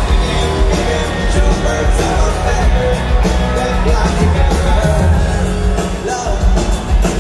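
Live pop-rock band playing on stage, with drums, electric guitars and a sung lead vocal, heard from within the audience.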